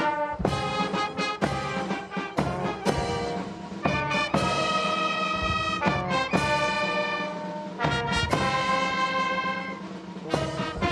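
Military brass band playing a slow, stately piece with held trumpet and trombone chords. Sharp strikes cut across the music every second or two.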